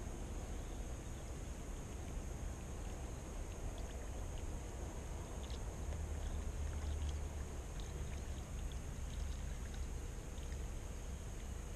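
Steady lakeside outdoor ambience: a low rumble that swells a little midway, with a faint steady high hiss and a few faint small ticks.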